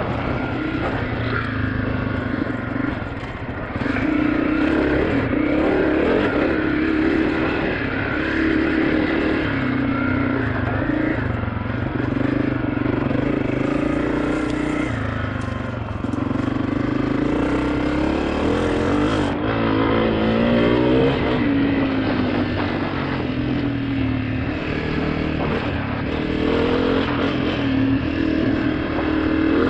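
2023 Honda CRF250F's single-cylinder four-stroke engine running while the bike is ridden, its revs rising and falling with the throttle and gear changes.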